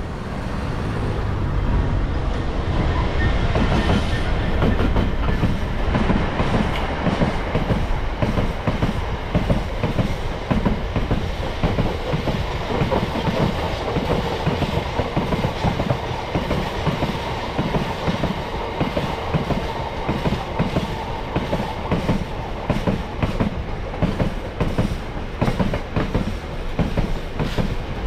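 Freight train passing close by: a low rumble over the first few seconds, then a long steady run of wagon wheels clattering rhythmically over the rail joints.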